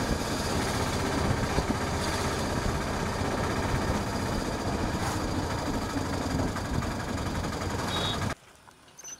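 Steady rumble and road noise of a moving vehicle, heard from on board, which cuts off suddenly near the end.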